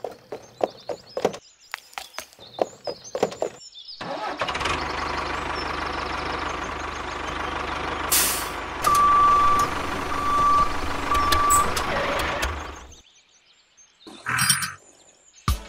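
Engine sound of a heavy vehicle for a toy tractor: a steady low rumble running for about nine seconds, with a short hiss and then three reversing-alarm beeps partway through, ending abruptly. Before it comes a run of short clicks, and a brief clatter near the end.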